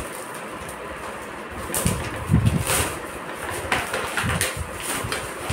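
Shiny foil gift-wrapping paper crinkling and tearing as presents are unwrapped, in short irregular rustles, with a few low thuds about two to three seconds in.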